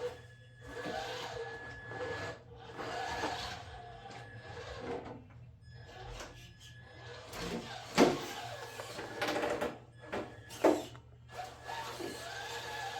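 Traxxas TRX-4 RC crawler's electric motor and geared drivetrain whining, rising and falling in pitch as the throttle is worked on and off, with several sharp knocks, the loudest about eight seconds in and another near eleven seconds.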